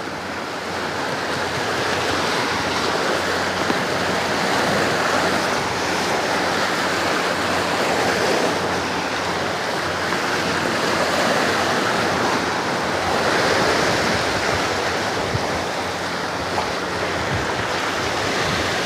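Sea surf washing against shore rocks: a steady rush of water that swells and eases gently.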